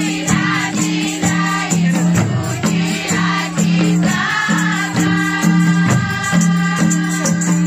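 A group of women singing together to handheld frame drums beaten in a steady rhythm, with a rattling jingle on the beat.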